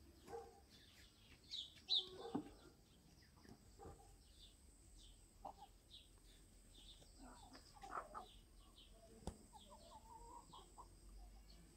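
Faint bird calls: short repeated chirps with lower clucking calls like those of hens, and a couple of sharp knocks, the loudest about two seconds in.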